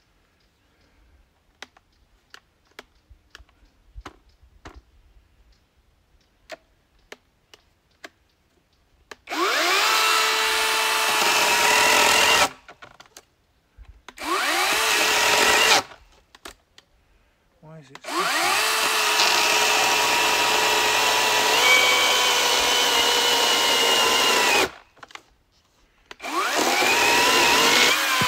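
Cordless electric chainsaw cutting a log, running in four bursts of a few seconds. Each burst starts with a rising whine and stops abruptly, after a few faint clicks at the start. The saw keeps stopping for a reason the owner doesn't know.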